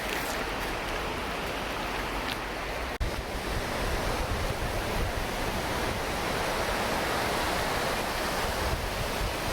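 Wind buffeting the microphone over a steady rushing outdoor noise, with a brief break about three seconds in, after which the low rumble of the wind is stronger.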